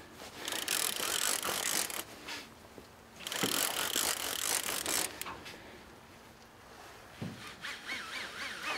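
Multiplier fishing reel's drag ratcheting out line in two runs of a second or two each, as a strong fish pulls against the rod.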